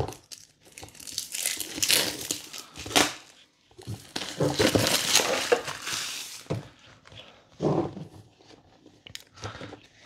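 Clear plastic shrink wrap being cut and torn off a cardboard product box, crinkling and crackling in two long stretches, followed by a few shorter, softer rustles and taps as the box is handled.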